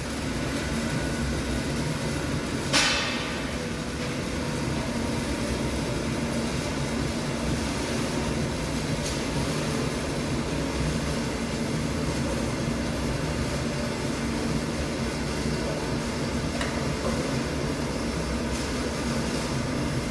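Electric arc welding: a steady crackle over a constant low hum from the welding machine, with one short sharp knock about three seconds in.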